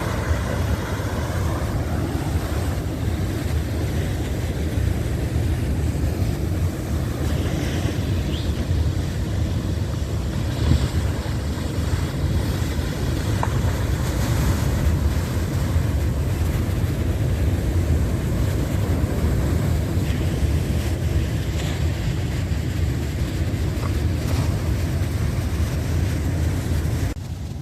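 Wind buffeting the microphone over the steady wash of heavy surf, a continuous rumbling noise strongest at the low end.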